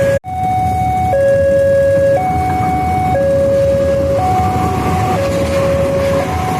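Two-tone siren switching back and forth between a higher and a lower pitch about once a second, over a low rumble. The sound drops out for a moment just after the start.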